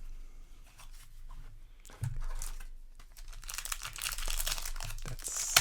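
Magic: The Gathering Jumpstart booster pack's foil wrapper being handled and torn open: a few scattered rustles at first, then dense crinkling through the second half.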